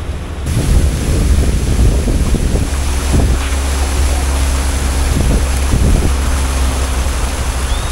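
A river ferry boat's engine running with a steady low rumble, water rushing and splashing along the hull, and wind on the microphone. It gets louder about half a second in.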